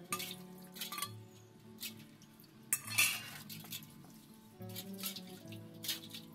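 Brass pooja vessels being scrubbed by hand, with irregular scraping strokes and clinks of brass against brass; the loudest stroke comes about halfway through. Soft background music plays underneath.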